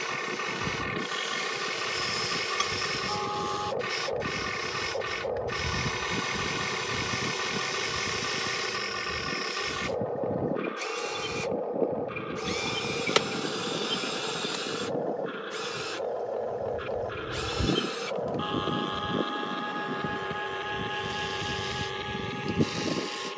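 Electric motors and gearing of a 1:20 scale Diecast Masters CAT 330D L all-metal RC excavator whining as the boom, arm and bucket work and the upper body swings, stopping and starting several times, with a few sharp clicks.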